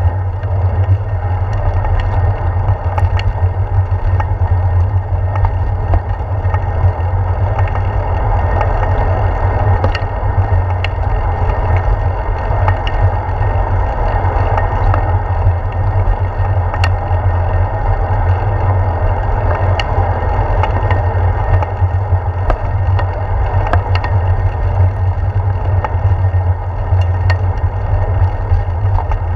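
Steady wind rumble and road vibration picked up by a handlebar-mounted GoPro Hero 4 on a moving bicycle, a deep, continuous rumble with faint ticks now and then.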